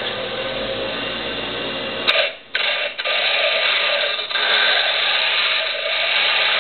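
Bench grinder running with a steady motor whine, then, after a sharp click about two seconds in, a star-wheel dresser pressed against the spinning grinding stone: a louder, rough, wavering grinding noise as its star wheels spin and chip at the stone, truing the wheel.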